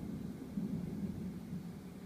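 Boshijie 16-inch mini ceiling fan running: a steady low hum with a faint hiss above it.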